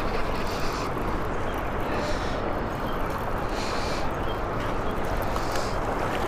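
Steady rush of flowing river water, with a few brief, higher splashy hisses over it.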